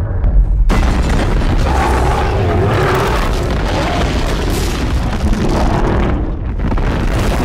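Film sound effects of a large explosion: a sudden heavy boom less than a second in, then a continuous deep rumble of blast and fire.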